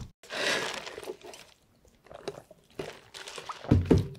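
Mouth sounds of eating Buldak spicy stir-fried noodles, close to the microphone. A noisy stretch of about a second near the start is followed by scattered chewing smacks and clicks.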